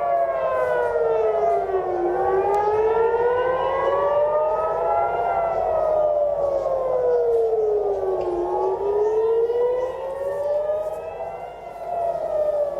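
Civil defence air raid siren wailing, its pitch slowly falling and rising, each sweep lasting about three seconds. It is the warning of an incoming missile attack.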